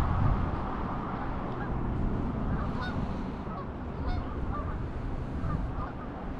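A flock of Canada geese honking, many short calls overlapping one another, over a steady low rumble.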